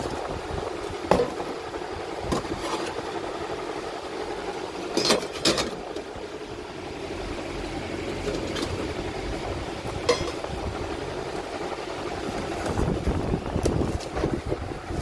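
Handling noises: a few sharp knocks and clinks, a close pair about five seconds in and more near the end, over a steady background rumble.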